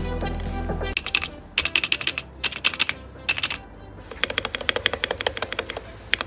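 Typing on a modded Gamakay K87 mechanical keyboard with lubed Gateron Yellow switches, PBT keycaps and a foam-filled case. It starts about a second in, after music cuts off: bursts of keystrokes, a short pause, then a fast steady run of typing.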